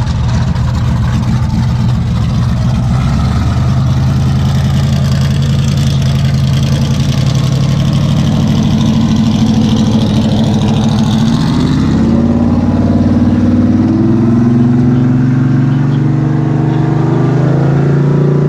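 A loud car engine running close by at a steady speed; its pitch rises about two-thirds of the way through and then holds higher.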